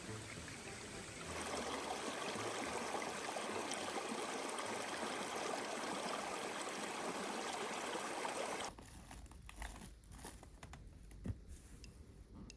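Steady rush of running water, which cuts off abruptly about two-thirds of the way through, leaving a quieter low rumble with a few faint clicks.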